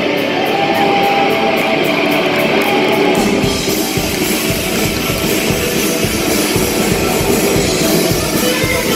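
Live rock band playing an instrumental passage on electric guitars, with a held note at first. The drum kit and cymbals come in hard about three seconds in.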